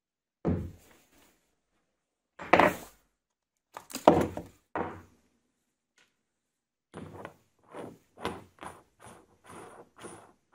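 Steel woodturning chuck (Record Power SC4) and its threaded insert handled on a wooden workbench: four heavy metal thunks as parts are set down on the wood, the loudest about two and a half and four seconds in. About seven seconds in, a run of lighter clicks and rubs, roughly two a second, follows as the insert is worked into the chuck.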